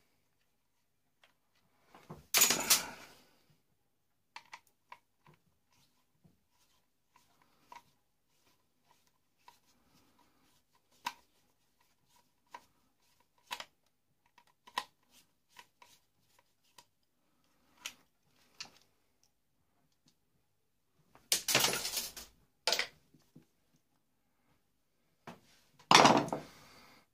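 Screwdriver clicking and scraping against the plastic housing of a Tefal Maestro steam iron as the shell is pried apart. Scattered small clicks, with louder clattering bursts near the start, about twenty-one seconds in, and near the end.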